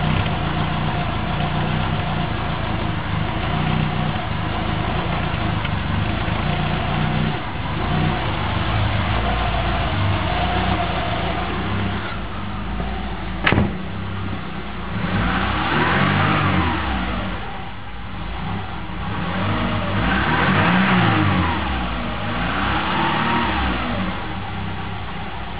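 1998 Subaru Forester's flat-four engine idling, heard first at the tailpipe. After a sharp click about halfway, its speed rises and falls three times in slow surges: an unsteady, hunting idle of the kind the owner traced to a dirty idle air control valve, mass airflow sensor and throttle body.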